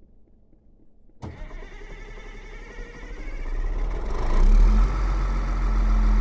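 Caterpillar 140M motor grader's diesel engine starting about a second in, then building up and settling into steady running with a deep rumble. It is a cold start after waiting on the glow plugs.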